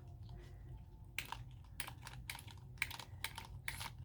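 Small plastic spray pump on an alcohol-ink mini spray bottle pressed repeatedly, giving faint clicks in pairs about every half second, each press and release. The nozzle is clogged, and the pumping is meant to get it spraying again.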